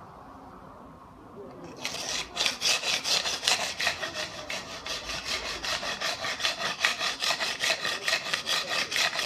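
Quick, even back-and-forth strokes of a hand tool working a ney's reed body, starting about two seconds in, about three to four strokes a second.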